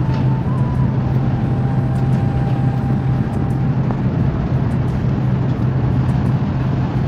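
Steady low rumble and hiss of a Chinese high-speed train running at speed, heard inside the passenger carriage.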